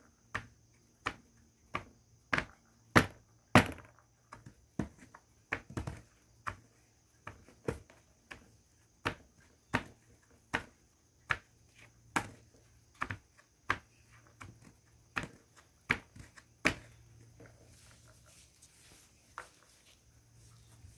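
Base of a glass bottle pounding colored naphthalene mothballs into powder on a tabletop: a steady run of sharp knocks, about one to two a second. Near the end the knocks stop and only faint grinding of the powder remains.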